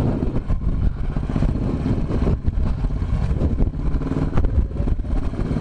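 Royal Enfield Bullet's single-cylinder four-stroke engine running at low speed as the motorcycle is ridden through deep mud, with scattered short knocks and rattles over its steady beat.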